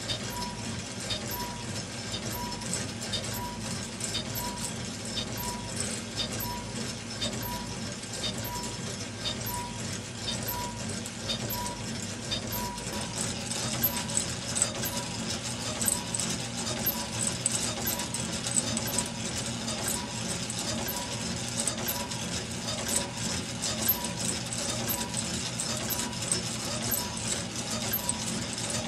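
Meccano model twin-cylinder steam engine running steadily, its metal strips, linkages and spinning flywheel and governor clattering and rattling, with a light ticking that repeats in a steady rhythm.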